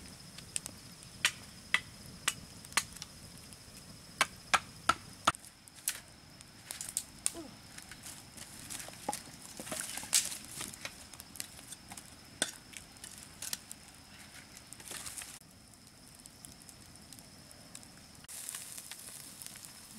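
Wood campfire crackling, with sharp pops every second or so, several in quick succession a few seconds in.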